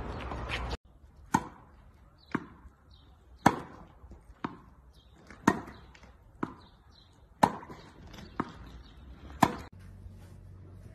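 A tennis ball struck back and forth with rackets in a steady rally. Sharp pocks come about once a second, alternating louder and softer, each with a short echo.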